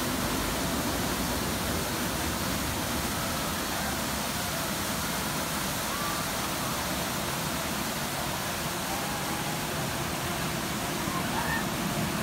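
Fountain jets gushing and splashing, a steady rush of falling water. A few faint, short, high wavering cries come through around six seconds in and near the end.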